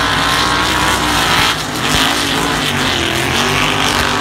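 Engines of two off-road buggies at full throttle in a side-by-side snow hill-climb race, loud and steady, their pitch rising and falling as they claw up the slope.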